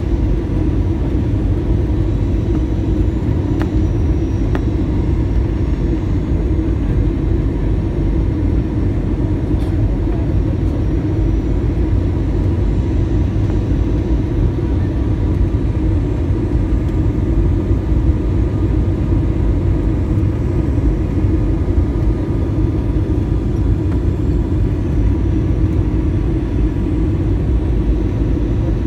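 Steady rumble of an airliner's engines and rushing air heard inside the passenger cabin during the descent to land, even throughout with a few faint steady tones above the deep noise.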